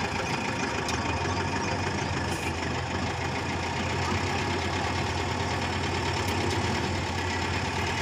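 Tata truck's diesel engine running steadily at low speed as the truck creeps through tight turns, a steady low hum.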